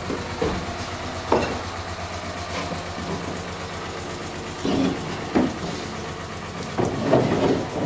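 Pile-driving rig's engine running steadily, with a few irregular knocks and clanks over it.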